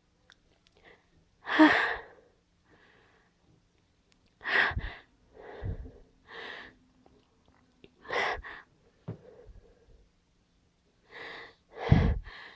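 A stuck sneeze building up: a series of sharp, gasping breaths a second or more apart, the loudest about two seconds in and again near the end, as the sneeze keeps catching without fully coming.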